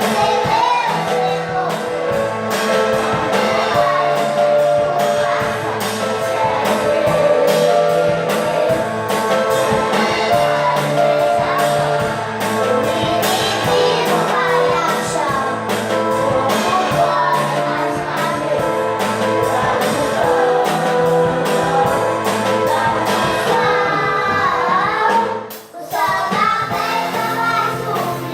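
Party music playing with a steady beat and sung vocals, including a child's voice, with a brief break about 25 seconds in.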